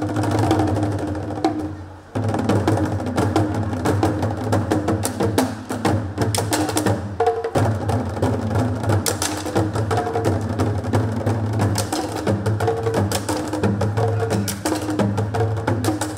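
Chinese drum ensemble playing a fast, dense rhythm on large barrel drums and a set of smaller drums, with sharp wood-block clicks. The playing breaks off briefly about two seconds in, then resumes.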